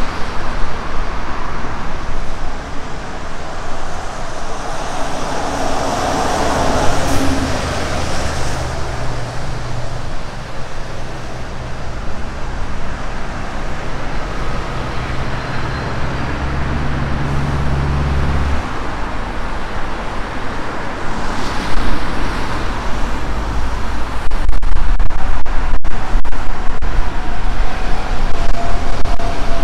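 Road traffic on a city street with wind buffeting the microphone. A steady low engine hum stops abruptly about two-thirds of the way through, and the wind rumble grows heavy and gusty in the last few seconds.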